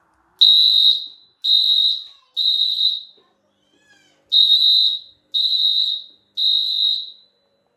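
Fire alarm sounder being tested. It gives a loud, high-pitched beep three times, pauses, then beeps three times again: the temporal-three evacuation pattern.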